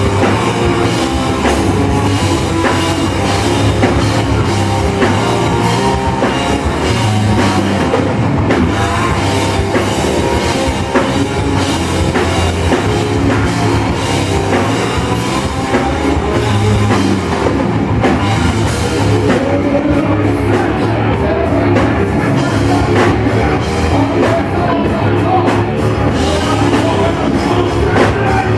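Loud rock music: a band with a drum kit playing on without a break.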